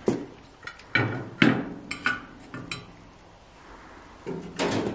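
Metal clinks and knocks of a lid lifter against a cast-iron Dutch oven lid heaped with charcoal briquettes: several sharp knocks in the first three seconds, then a longer clatter near the end.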